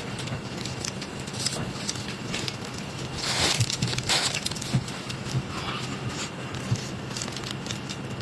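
Close-up eating sounds of someone eating cake or pastry: small wet mouth clicks and chewing throughout, with a louder crunching, crinkling burst around three to four seconds in.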